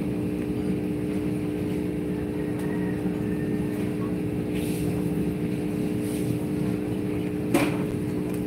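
A motor running with a steady, even hum, and one sharp knock about seven and a half seconds in.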